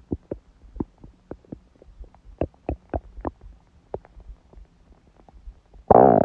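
A woman's stomach and intestines gurgling during her period: many small scattered pops and squelches, then a loud gurgle just before the end.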